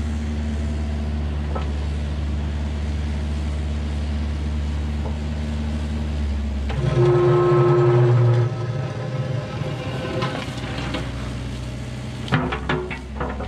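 Kubota mini digger's diesel engine running steadily. It gets louder, with a hydraulic whine, for about a second and a half midway as the arm works under load. Near the end the steel bucket scrapes and knocks against soil and concrete.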